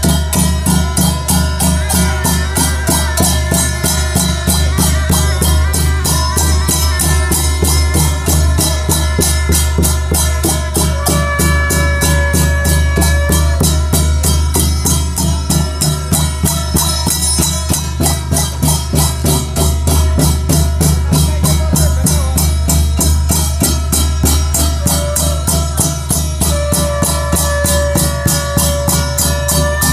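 Live Odia folk ritual music for Danda Nacha: fast, steady drumming with jingling percussion. A couple of long held melodic notes rise over it, near the middle and again near the end.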